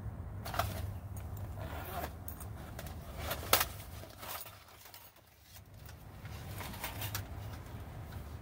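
Handling noise: rustles and metal clicks as a folding stainless-steel backpacking wood stove is taken out of its zippered pouch and handled, with one sharp click about three and a half seconds in.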